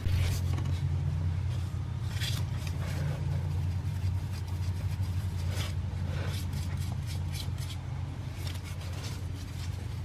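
A steady low hum with scattered light knocks and scrapes over it.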